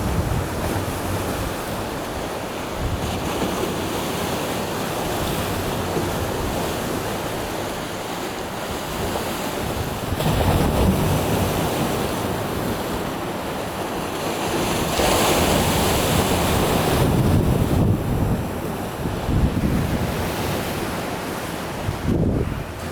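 Sea waves washing and breaking on the shore, swelling and easing, with louder surges near the middle and later on. Wind buffets the microphone with a low rumble.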